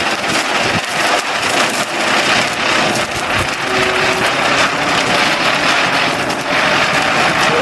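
Ground spinner firework (sangu chakkaram) burning, a steady loud hiss of its jet of sparks, a little stronger near the end.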